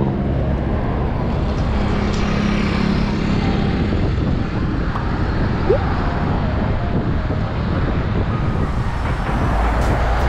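Wind rushing over an action camera's microphone on a moving bicycle, with road traffic going by and a steady engine hum about two to four seconds in.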